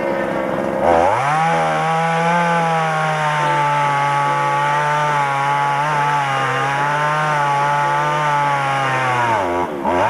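Two-stroke chainsaw revved from idle to full throttle about a second in and held at high speed for about eight seconds, its pitch wavering slightly. It drops back near the end and revs up again.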